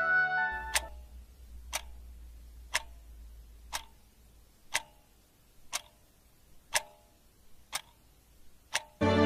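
A clock ticking, one sharp tick each second, nine ticks in all. Music fades out just before the first tick and comes back in near the end.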